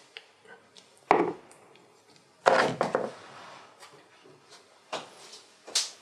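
Four short, sharp knocks and clatters of painting tools being handled and set down, the second, about two and a half seconds in, the loudest with a short rattle after it.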